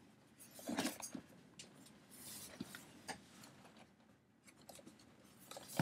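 Cardboard box being handled: scattered light knocks and clicks with short scraping, rubbing noises as it is turned and lifted.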